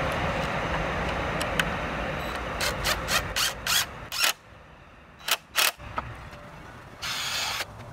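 Cordless drill running steadily as it bores pilot holes into a pine frame board, drilled first so the wood doesn't split. Near its end comes a quick run of sharp clicks, then two more clicks a moment later and a short burst of the drill running again near the end.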